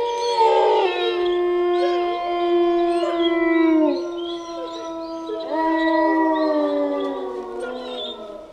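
Several wolves howling together in long, overlapping howls at different pitches. The howls hold steady, then slide down in pitch; a new howl rises in about halfway through, and the chorus fades near the end.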